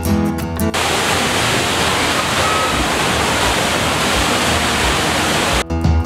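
Steady rushing of the HSBC Rain Vortex indoor waterfall, water falling into its pool. Guitar music gives way to it less than a second in and returns shortly before the end.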